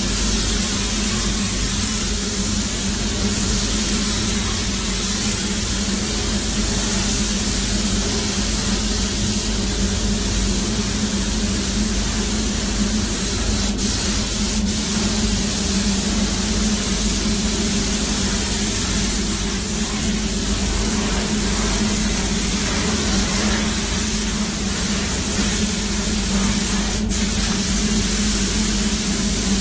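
Compressed-air gravity-feed paint spray gun hissing steadily as it sprays paint onto a car body, over a steady low hum.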